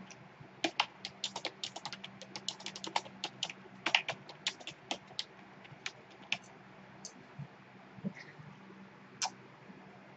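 Typing on a computer keyboard: a quick, irregular run of key clicks for about five seconds, then a few scattered keystrokes.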